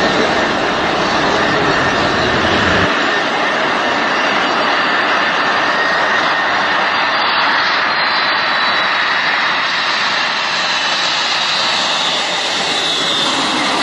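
Boeing 747 jet engines running loud and steady, a continuous noise with a faint high whine over it. The deep low rumble cuts out abruptly about three seconds in.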